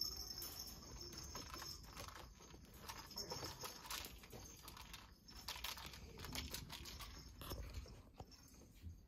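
Persian kittens playing in a wire crate: faint, irregular taps, clicks and rustles of paws and toys.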